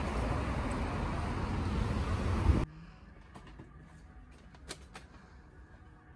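Wind buffeting a phone microphone over street traffic noise, which cuts off abruptly about two and a half seconds in to quiet shop-interior room tone with a few faint clicks.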